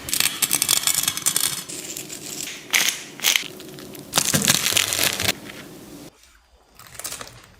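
Crisp fruit being cut with a knife, with crackling crunches. There is a dense run of crunching at first, two short crunches in the middle and another run of crunching before it goes quiet.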